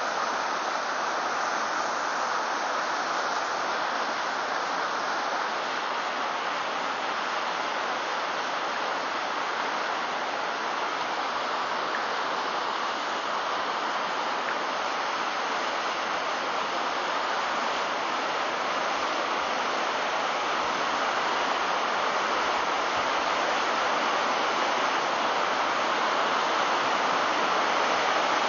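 White-water river rapids rushing: a steady, even rush of water that grows slightly louder near the end.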